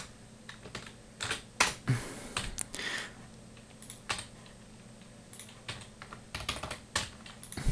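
Computer keyboard keys being pressed: irregular clicks and taps in small clusters, with short quiet gaps between them.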